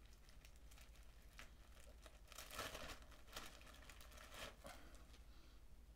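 Faint crinkling of a clear plastic sandwich bag being worked open and handled, in a few short bursts that are loudest about two and a half seconds in, again a little later, and die away near the end.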